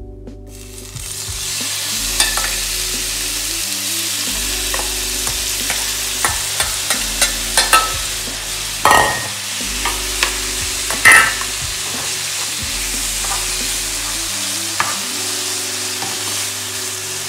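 Marinated pork strips sizzling in hot oil in a non-stick frying pan, the sizzle coming up about a second in as the meat goes in. Scrapes and taps of a metal bowl and a spatula against the pan sound over the sizzle, the loudest a little past halfway.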